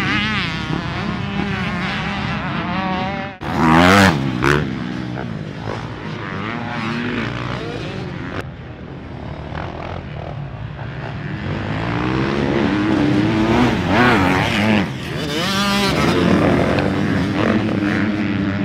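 Several motocross dirt bike engines revving on a dirt track, their pitch rising and falling with throttle and gear changes. The loudest moment is a close pass about four seconds in, just after a brief drop in the sound.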